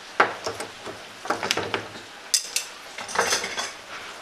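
Steel F-clamp being loosened and taken off a wooden mould block: a series of metallic clinks and clanks from the clamp's bar and sliding jaw, with a short rattle about three seconds in.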